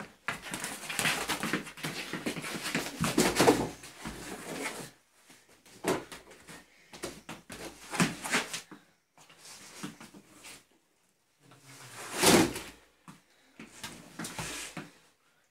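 Scuffling and soft thumps of a children's play boxing bout with plush boxing gloves, in uneven bursts with pauses between them, the loudest about twelve seconds in.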